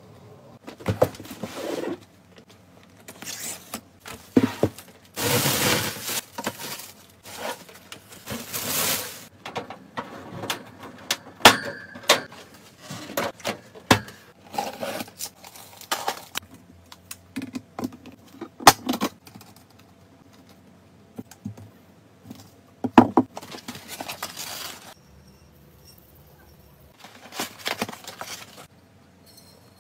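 Close-up handling and packing sounds: sharp clicks and clinks of a clear spoon and a clear plastic container being picked up and set down, mixed with short bursts of rustling and scraping. Near the end, a cardboard box is handled as items are packed into it.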